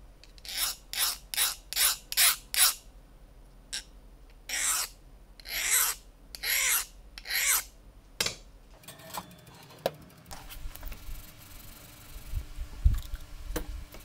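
Hand file scraping along the edge of a small steel knife blade made from an old bearing: six quick strokes, then four slower, longer strokes. After that, only a few faint clicks and a low hum.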